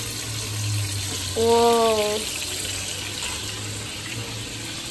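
Köfte (meatballs) frying in oil in a pan: a steady sizzle over a low hum. A person's voice is heard briefly, about a second and a half in.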